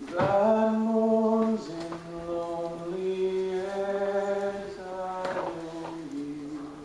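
A single voice singing a slow melody in long held notes, each note held for a second or more before moving to the next pitch.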